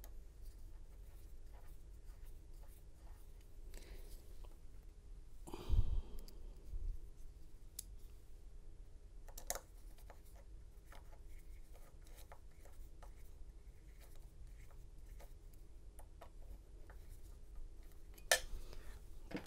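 Small hex key working grub screws into the cutter and probe holders of a Condor Dolphin XP-005 key-cutting machine: faint, scattered metallic clicks and ticks, with a dull thump about six seconds in and a sharper tap near the end.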